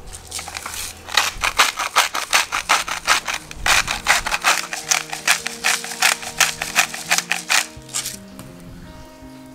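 Hand-twisted salt grinder and then pepper grinder being turned over a raw chicken: a fast run of ratcheting grinding clicks, about five or six a second, with a short break about three and a half seconds in where one grinder is swapped for the other.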